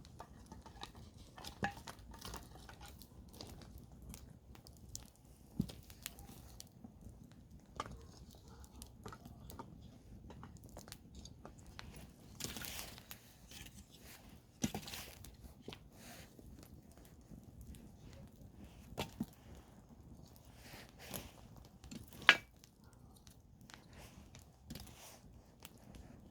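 Wood campfire crackling: irregular sharp pops and snaps over a low, steady background noise, with a short hiss about halfway and one loud pop near the end.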